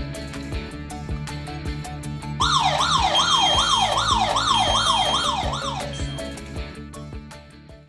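Background music with a steady beat; about two and a half seconds in, a burglar-alarm siren joins, its pitch sweeping up and down about two and a half times a second for some four seconds. The music then fades out near the end.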